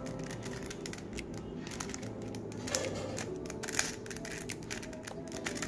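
Plastic 3x3 Rubik's cube being twisted through a move sequence, its layers turning in quick, irregular clicks and rattles.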